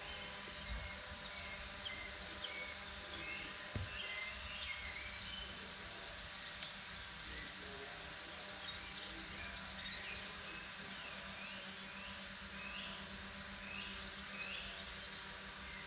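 Songbirds chirping over a steady low hum and a background hiss, with one soft low thump about four seconds in.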